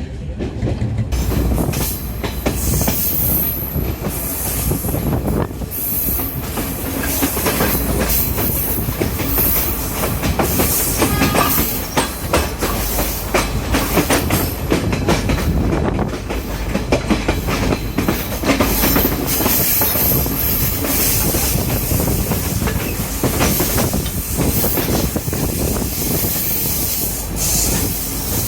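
Diesel multiple-unit intercity train running along the track, its wheels knocking and clattering over rail joints and points under a continuous rumble. Wheel squeal rises high at times.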